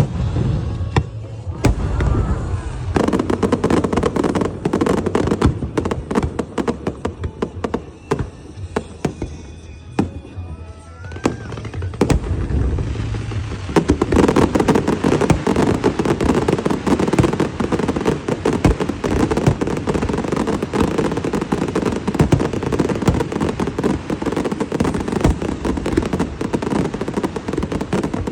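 Fireworks and firecrackers going off in a dense, rapid crackle of overlapping pops. It thins out about a third of the way in, a short rising whistle sounds, and it then builds back to a continuous crackle.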